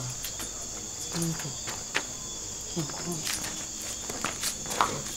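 Crickets chirring steadily in a high, even band, with a few brief human vocal sounds and several light clicks or scuffs.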